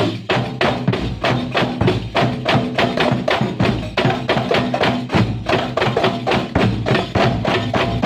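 Kuntulan ensemble playing: fast, dense percussion at about six strokes a second, with a steady pitched tone held underneath.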